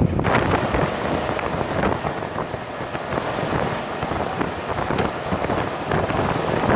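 Jetboat under way at speed: wind buffeting the microphone over a steady rush of water and engine noise.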